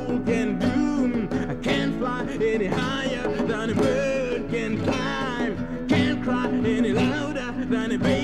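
Music from an early-1970s demo recording: a guitar-backed song with a moving melody line over steady bass notes.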